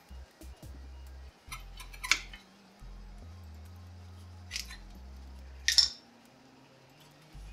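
An old rear brake pad on a Dodge Neon SRT-4 being worked out of its caliper bracket: three short bursts of metal clicking and scraping, the loudest about three quarters of the way through, over quiet background music.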